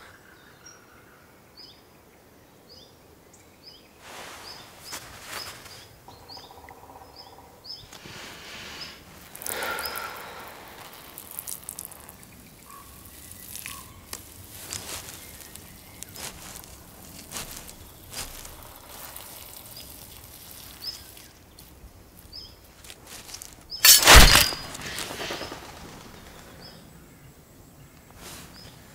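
Woodland ambience: a bird chirping in short repeated calls, with light rustling and handling noises. A single loud thump comes near the end.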